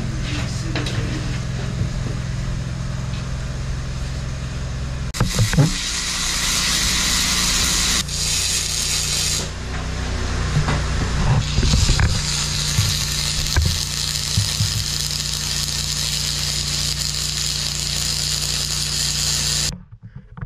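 A handheld power grinder working on the aluminum boat deck: a loud high hiss that comes and goes from about five seconds in, over a steady machine hum, with a few metallic knocks. All the sound cuts off suddenly near the end.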